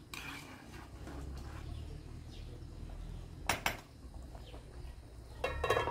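A metal ladle stirring in a cooking pot of soup, with clinks of metal on the pot: two sharp ones about three and a half seconds in, then a louder clatter that rings briefly near the end.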